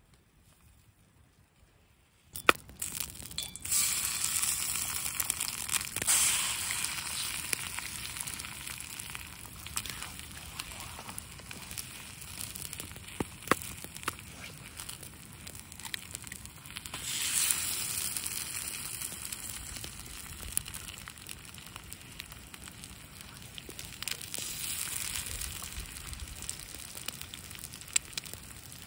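Eggs frying in a small black steel frying pan over an open fire: a steady high sizzle that starts suddenly a couple of seconds in and swells twice, as each egg goes into the hot pan. Occasional sharp crackles from the fire sound through it.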